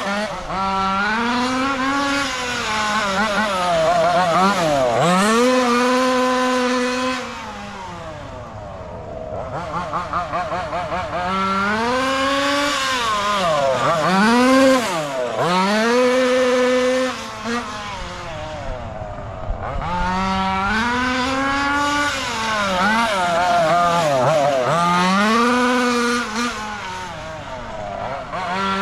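Taylor RC 35cc two-stroke gasoline engine of a 1/5-scale MCD XS5 Max RC car revving up and down over and over as the car accelerates and slows. The engine grows fainter twice for a few seconds as the car drives off into the distance.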